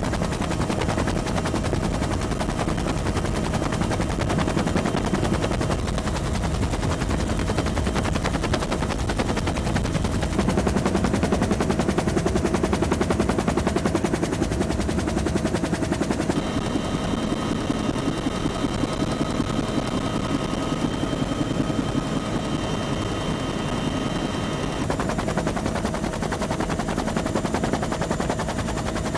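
Helicopter rotor beating rapidly and steadily over a steady engine whine, with extra higher whining tones for several seconds past the middle.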